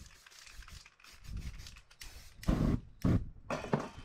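Aerosol spray paint being lit: a soft hiss, then four short, loud whooshes about two to four seconds in as the paint on the sheet catches fire.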